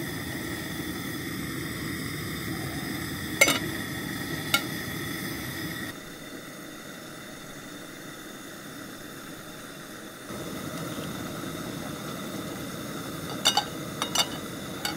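Fire Maple camp stove burning with a steady hiss while food cooks on it, with a few sharp clinks. The hiss drops somewhat about six seconds in and picks up again around ten seconds.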